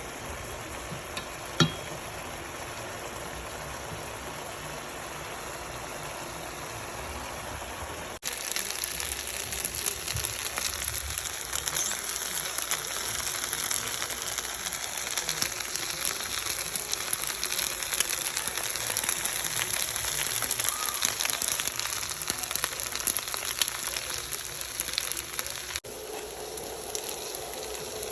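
Food sizzling and crackling in a hot pan, a steady dense hiss that jumps louder after about eight seconds and drops back near the end. A single light tap about a second and a half in.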